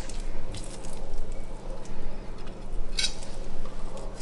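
Knife slicing a raw fish fillet away from the backbone on a plastic cutting board: soft cutting and handling noises with a sharp click about three seconds in, over a steady low hum.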